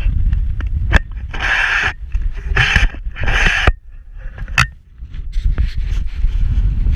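Wind buffeting the camera's microphone as a steady low rumble, with a few short hissing gusts and a couple of sharp handling knocks.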